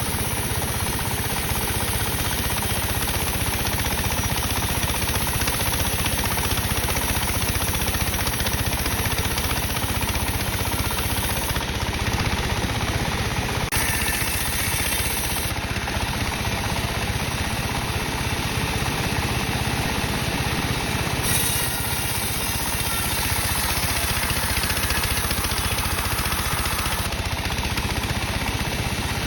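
Sawmill saw running steadily while slicing dry teak, a loud continuous machine noise with a high hiss that comes and goes several times.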